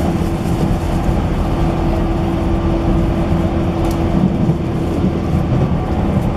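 Running noise inside a JR 185 series electric motor car (MoHa 185) at speed: a steady rumble of wheels on rails with a steady humming tone.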